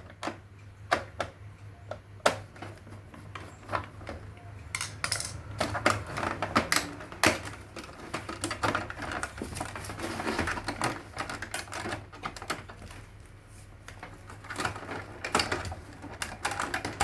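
Irregular clicking, tapping and knocking of a screwdriver and hands working on the plastic casing of an Epson L3150 printer, removing a screw to get at the waste ink pad, over a low steady hum.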